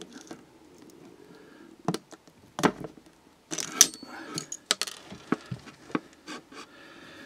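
Self-adjusting automatic wire stripper worked on the cores of a mains cable, with a series of sharp clicks and snaps as its jaws grip and strip the insulation and the tool is handled.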